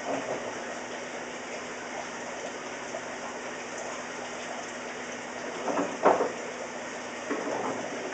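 Steady rush of running water, with a few short knocks and clatters, the loudest about six seconds in.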